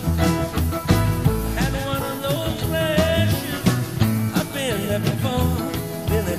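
A live rock band playing an upbeat, bouncy groove: drums, bass, electric guitars and keyboards, with a melody line that bends up and down in pitch.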